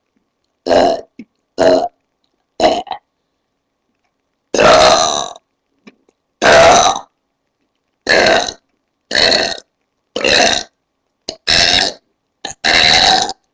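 A woman belching deliberately, about ten belches in a row. Three short ones come in the first three seconds, then after a pause longer, louder ones follow roughly a second apart.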